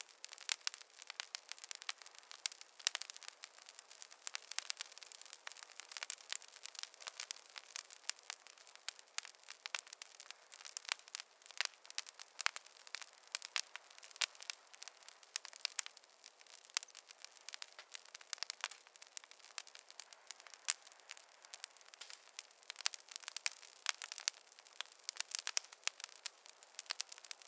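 Campfire crackling: a dense, irregular run of sharp pops and snaps over a faint hiss.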